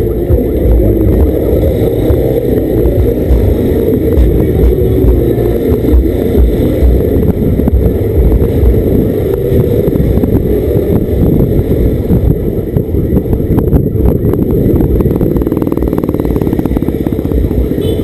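250 cc motorcycle engine running as the bike rides slowly through traffic, with a dense low rumble over the onboard microphone.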